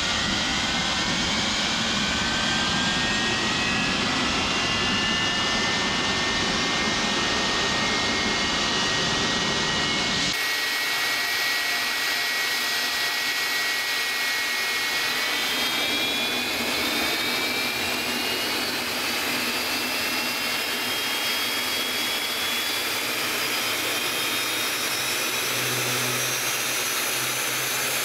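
GTD-350 turboshaft engine from a Mi-2 helicopter running on a test stand: a steady turbine roar with a high whine that rises slowly in pitch as the engine speeds up. About ten seconds in, the deep rumble drops away abruptly.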